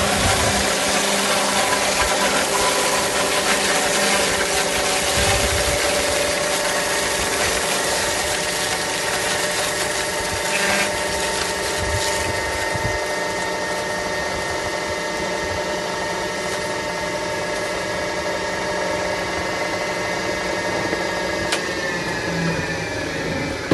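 Industrial vegetable crushing machine running, its electric motor and cutter giving a steady mechanical hum with a gritty grinding noise as it reduces vegetables to paste. The grinding noise is heavier in the first half and eases off, leaving a steadier hum, with one sharp click near the end.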